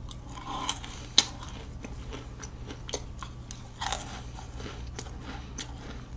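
Close-miked chewing of a mouthful of fresh cream cake: wet mouth sounds with a few sharp clicks, the loudest about a second in.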